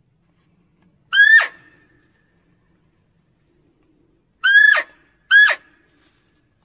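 Red muntjac (barking deer) barking: three short, sharp barks that each drop steeply in pitch. One bark comes about a second in, and two follow in quick succession near the end.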